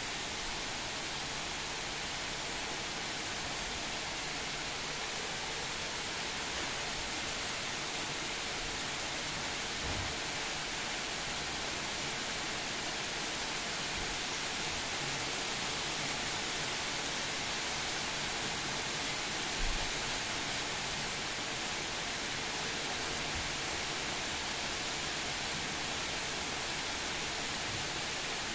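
Heavy downpour rain falling on trees and surroundings, a steady even hiss, with one brief low bump about two-thirds of the way through.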